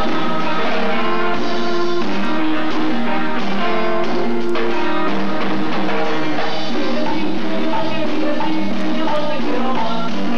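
A band playing Latin tropical dance music, with a drum kit keeping the beat under sustained melody notes.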